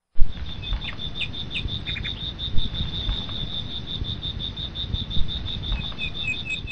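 Insects chirping in a fast, even pulse of high notes, about five or six a second, with a second, lower repeated chirp joining near the end, over a low rumble.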